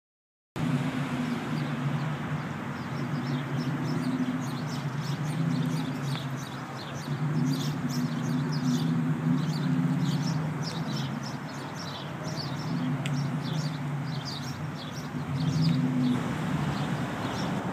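1985 Chevrolet Monte Carlo SS's V8 idling steadily through its exhaust pipes, starting about half a second in, with many short bird chirps over it.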